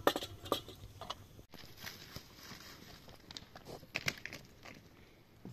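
Short clinks and knocks of a metal kettle and cup being handled by a wood fire. Then, after a cut about a second and a half in, scattered crunches and clicks of feet and stones on a rocky gravel slope.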